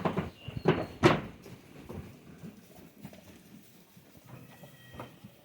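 Goat hooves knocking on a hard floor: three loud sharp knocks in the first second or so, then fainter scattered tapping.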